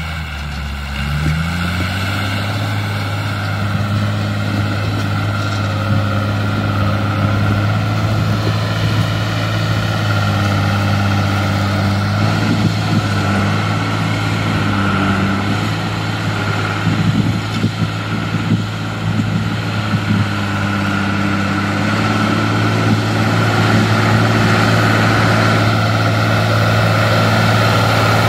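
John Deere 3350 tractor's six-cylinder diesel engine running steadily under load while pulling a disc harrow through tilled soil. Its pitch rises about a second in, and it grows louder near the end as the tractor comes close.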